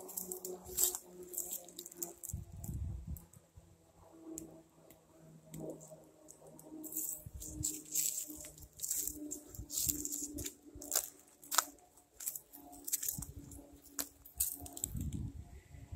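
Footsteps crunching over dry fallen leaves and twigs, an irregular run of short crackles with a few soft low thumps.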